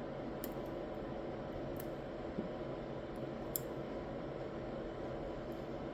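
A few faint, sharp clicks of small lock pins and parts being handled as a Clavis F22 lock is reassembled pin by pin, over a steady low background hum.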